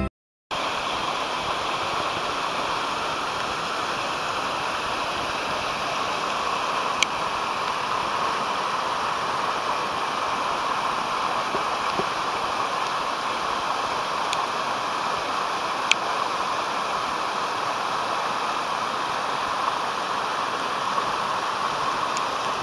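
Mountain torrent cascading over boulders in small waterfalls and rapids: a steady rushing of water, with two brief faint clicks partway through.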